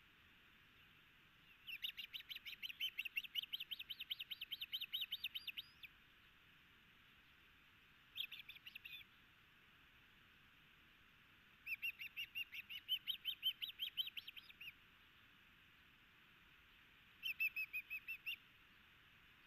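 Ospreys calling at the nest: four bouts of rapid, high whistled chirps, several a second, the longest about four seconds, with short gaps between bouts.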